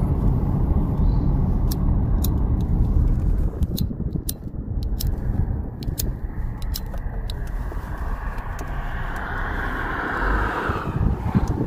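Road and wind noise inside a moving car, a steady low rumble that eases off a few seconds in. Near the end a car passes going the other way, its sound swelling and then dropping away.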